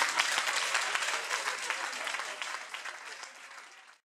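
Audience applauding: dense hand-clapping that fades steadily and cuts off abruptly near the end.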